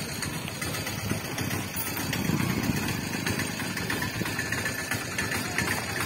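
A small vehicle engine idling steadily, a little louder around two seconds in.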